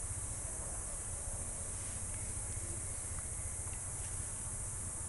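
Steady outdoor background noise: a constant high hiss over a low rumble, with a few faint ticks a little past the middle and no distinct event.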